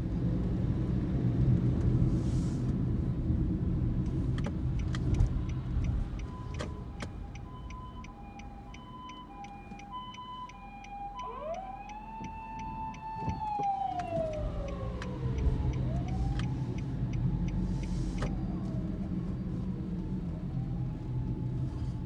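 Japanese ambulance electronic siren: from about seven seconds in it alternates between two tones (the pi-po pi-po), then switches to a wail that rises and falls several times. Low road rumble of traffic runs under it, heaviest at the start and near the end.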